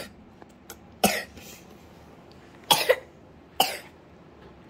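A person coughing: three short coughs, the middle one a quick double cough.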